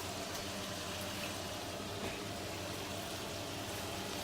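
Chicken pieces frying in hot avocado oil in a pan on high heat: a steady sizzle.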